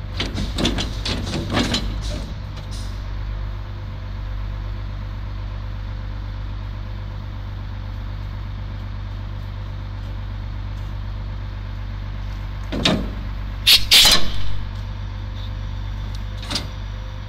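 Rear-load garbage truck's engine idling with a steady low hum while its hydraulics lower the rear cart-tipper arm. There are light knocks at the start and a few loud metal clanks about three-quarters of the way through.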